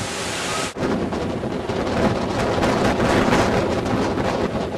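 Hurricane wind buffeting the microphone: a loud, dense rushing noise that flutters rapidly, with one brief break under a second in.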